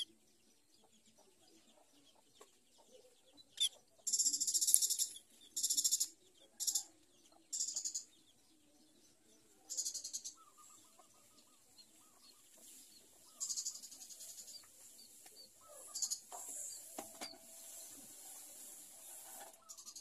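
Society finches making high, buzzy, scratchy calls in short separate bursts, with a longer run of nearly three seconds near the end and faint soft twittering between.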